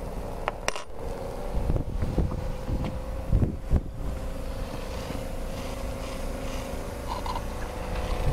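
Live-steam model marine engine plant giving a steady hum, with a few sharp knocks and scrapes as the camera is handled and moved, and wind rumbling on the microphone.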